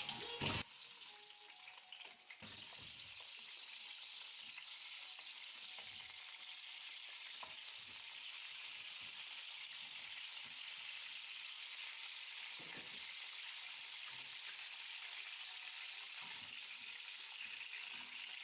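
Eggplant pieces sizzling as they fry in plenty of hot oil in a pan: a steady hiss that sets in about two seconds in, with occasional light knocks of stirring.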